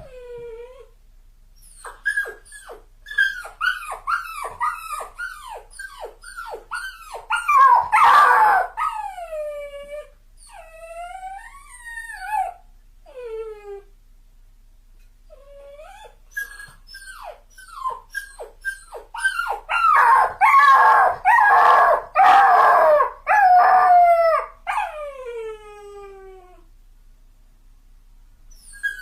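A dog whining and crying: a run of short, high whimpers, each falling in pitch, with longer drawn-out falling whines between them. The crying thickens into dense, louder outbursts about eight seconds in and again through the last third, with a short lull near the middle.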